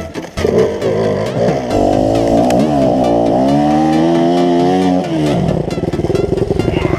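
Dirt-bike engine revving hard, its pitch rising and falling as the throttle is worked on a steep climb; from about five seconds in it drops to low revs with a rapid, even putter.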